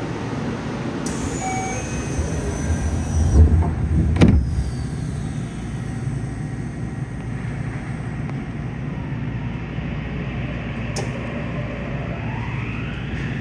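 Subway train standing with a steady low hum, heard from inside the car; the doors shut with a thump about four seconds in. Near the end the Mitsubishi IGBT-VVVF inverter starts a rising whine as the 3000R train pulls away.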